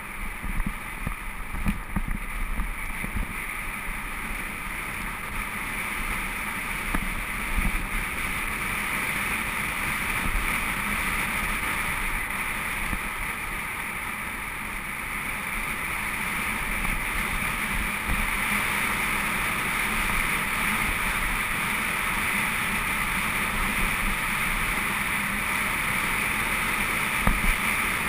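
Wind rushing over the camera's microphone on a fast mountain-bike descent, with the rumble and clatter of tyres on a gravel road. It grows a little louder as speed builds.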